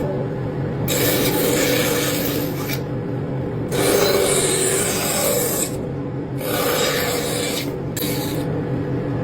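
Abrasive scraping on wood in long strokes, each lasting one to two seconds with short pauses between, like a rasp or file being worked.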